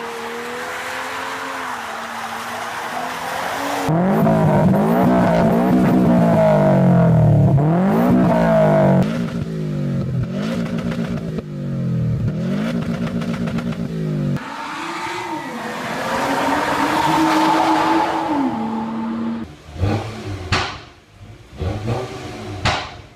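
Sports-car engines in quick succession. First an engine is held at steady revs for a few seconds while a car drifts. Then a Subaru Impreza WRX STI's flat-four is revved up and down again and again. Near the end comes a string of sharp exhaust pops and crackles as the revs drop.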